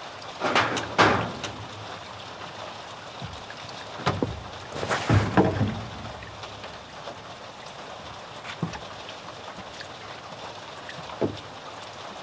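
Wooden knocks and clunks as a timber roosting bar is handled and fitted in a wooden chicken coop: a pair of knocks about a second in, a louder cluster around the middle, then two single knocks later, over a steady background hiss.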